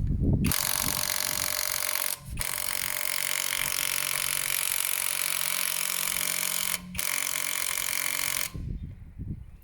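Small cordless impact wrench hammering on a car wheel nut in three runs, a short one, a long one of about four seconds and another short one. The nut, torqued to about 110 Nm, does not come loose.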